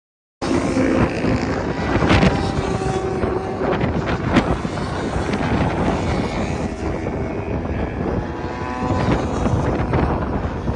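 Sport motorcycles running at speed on a racetrack, engines revving as they pass, cutting in suddenly about half a second in.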